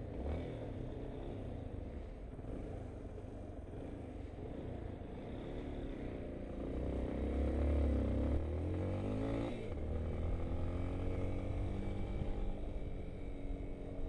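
Yamaha XTZ 250 Ténéré's single-cylinder engine running under way, heard from the bike with road and wind noise. About halfway through, its pitch rises and falls as it gets louder, then it changes suddenly and settles to a steady tone.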